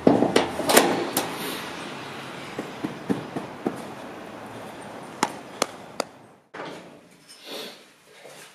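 Heavy oak planks knocking and thudding against a trailer's bed and sides as they are unloaded. The loudest knocks come in the first second, then single sharp knocks follow now and then until about six seconds in.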